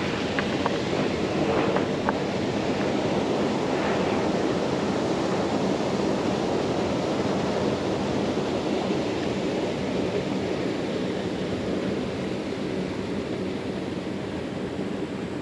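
Wind buffeting the camera's microphone, a steady rushing noise, with a few light clicks in the first couple of seconds.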